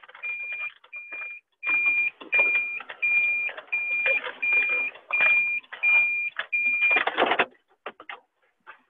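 Car's interior warning chime beeping steadily, about one and a half beeps a second, with rustling and street noise under it. The beeping stops after about seven seconds, just after a short burst of louder rustling.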